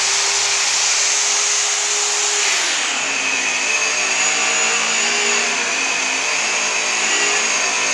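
Handheld electric angle-grinder-type polisher with a polishing wheel running with a steady high whine. About two and a half seconds in its pitch slides down as the wheel is put to the stainless steel handrail, and it runs on under load, polishing the rail.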